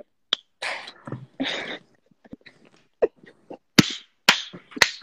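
Choppy, breaking-up audio from a lagging Instagram Live stream: short breathy fragments that cut off abruptly, gaps of silence, and several sharp clicks in the second half.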